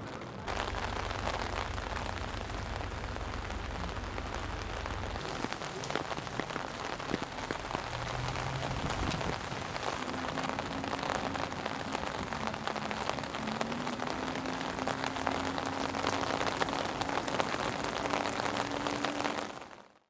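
Steady rain falling on a wet paved street, with many close drops ticking. A low rumble lies under it for the first five seconds, and a faint steady hum runs through the second half.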